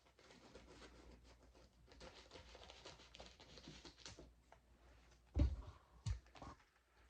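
Light crinkly rustling of a blind-bag packet being handled and opened, then two dull thumps in quick succession near the end.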